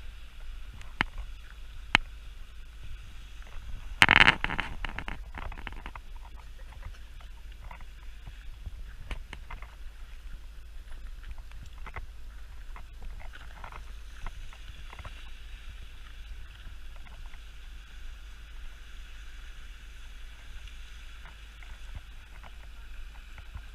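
Footsteps and knocks on a loose rocky path, with one loud clatter about four seconds in and scattered clicks after it, over a steady hiss.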